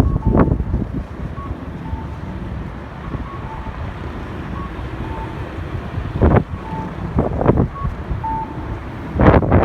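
Strong wind buffeting the microphone in rumbling gusts, with loud surges about half a second in, twice in the second half, and again near the end. Faint short beeps come and go throughout.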